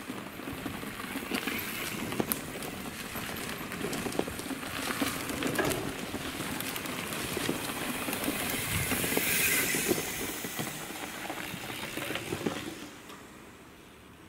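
Mountain bikes descending a dirt forest trail close by: knobby tyres crunching over dirt and twigs, with the bikes rattling and many short clicks and knocks. It is loudest as a rider passes near, then dies away about a second before the end.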